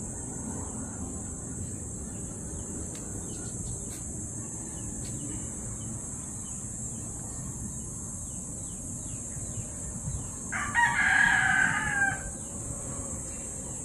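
A rooster crowing once, a single call of about a second and a half near the end, over a steady high-pitched hiss.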